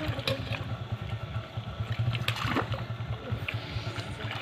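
Water sloshing and splashing as several people wade and grope for fish in muddy shallow water, with a few brief sharp splashes, over a steady low hum.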